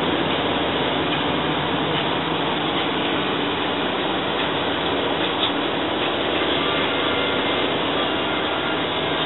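Steady road noise inside a moving car's cabin: tyres and engine running evenly at cruising speed.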